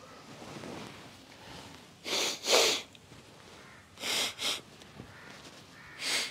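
Sharp, sneeze-like blasts of air forced out through the nose, kapalbhati style, to clear water left in the nasal passages after jal neti. They come in three pairs of short puffs, about two seconds apart, the last pair near the end, blown through one nostril with the other pressed shut.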